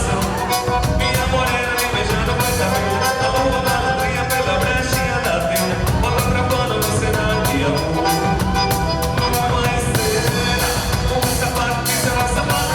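Forró music playing with singing over a steady, quick beat.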